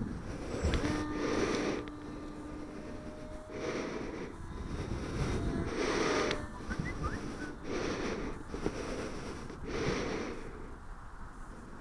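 Puffs of air hitting the microphone every second or two, over a faint, drifting whine from the electric-powered RC T-28 flying overhead.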